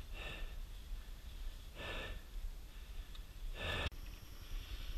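A person breathing close to the microphone: three audible breaths about two seconds apart, over a low steady rumble.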